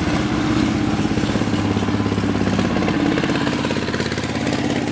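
Small river boat's engine running at a steady speed, with a fast, even pulsing beat.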